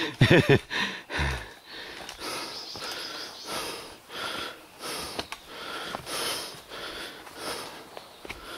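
A hiker's fast, heavy breathing close to the microphone, about one breath every 0.7 seconds: out of breath from climbing a steep mountain trail.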